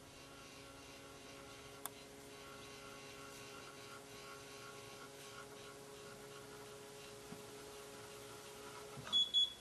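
Electric motor of a Droptail power tailgate assist humming steadily as it moves the pickup's tailgate, stopping about nine seconds in. A short, loud, high-pitched beep follows.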